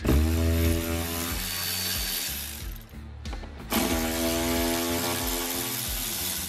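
Milwaukee M12 cordless ratchet running out 8mm bolts from a shift boot retainer, in two runs of steady motor whine of about three seconds each, with a short break just before halfway.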